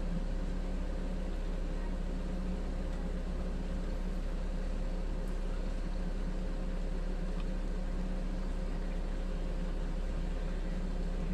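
Kings 75-litre dual-zone portable fridge's compressor and cooling fan running on maximum cooling, a steady hum with a constant low drone and a faint steady tone above it.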